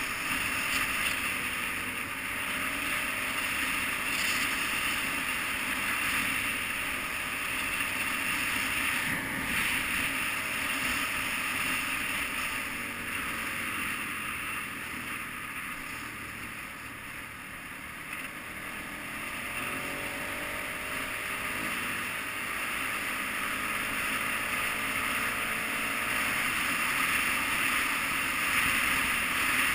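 KTM 990 Adventure's V-twin engine running under way, mixed with heavy wind rush on the camera. It eases off around the middle and then climbs in pitch again as the bike picks up speed.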